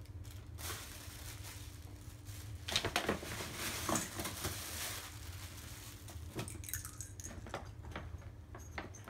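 Tissue paper and a glossy paper gift bag rustling and crinkling as the bag is rummaged through and the tissue pulled out, busiest from about three to five seconds in.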